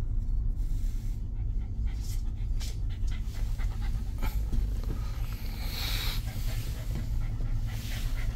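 A cocker spaniel panting in short breathy bursts, over the steady low drone of a ferry's engines.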